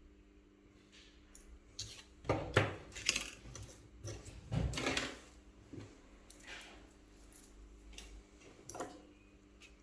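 Small hand tools and hard parts being handled during a phone repair: irregular clicks, taps and short scrapes, busiest about two to five seconds in, over a steady low hum.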